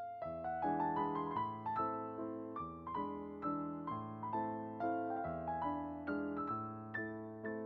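Background music: a soft piano melody, notes struck about twice a second and left to ring.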